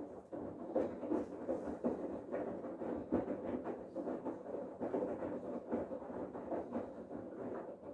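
Bosch Serie 8 front-loading washing machine in its main wash: the drum turning with wet laundry tumbling and sloshing in it, giving irregular soft thuds. It stops suddenly near the end as the drum comes to a pause.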